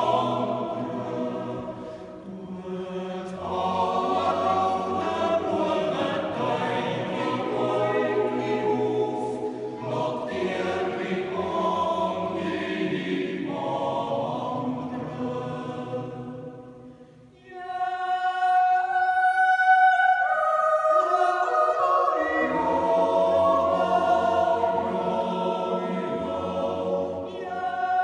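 Swiss yodel club choir, men's voices with two women, singing a cappella in a church. The chord fades to a brief pause about 17 seconds in, then the singing resumes with clear, high held notes on top.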